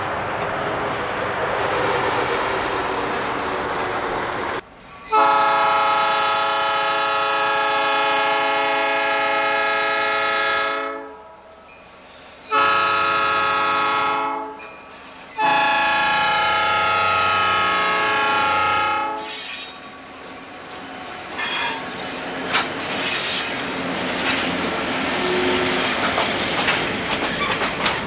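Freight cars rumbling past. Then a diesel locomotive's air horn sounds three blasts: a long one, a short one and another long one. After the horn, wheels clatter over the rail joints with a few brief squeals as the train draws near.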